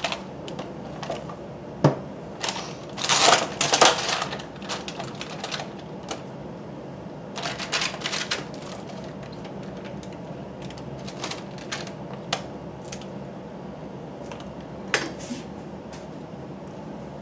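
Crinkling of a plastic clamshell produce container and crisp snaps of romaine lettuce leaves being pulled off and handled, as irregular clicks and crackles that bunch into two busier spells, about two to four seconds in and again around eight seconds.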